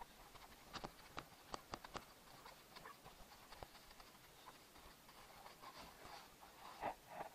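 Faint rubbing and scratchy clicks of a soapy wash sponge scrubbing a foam-covered car tyre and alloy wheel, with a run of sharp clicks about a second in and a louder scrape near the end.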